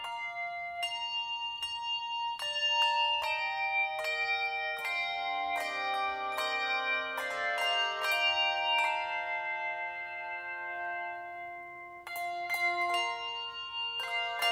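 Handbell choir ringing a hymn: several bells struck together in chords and left to ring and fade, with an acoustic guitar playing along. The ringing thins out about two-thirds of the way through, then a fresh chord is struck near the end.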